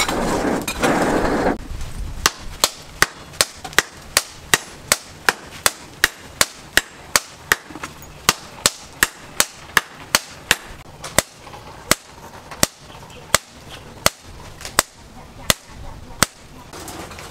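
Hand hammer striking a red-hot axe blank on a steel post anvil: sharp, evenly paced blows, about three a second, slowing to about one and a half a second after the tenth second and stopping about a second before the end. A loud rushing noise fills the first second and a half.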